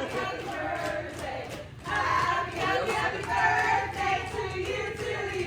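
A group of people singing together, several voices on held, wavering notes.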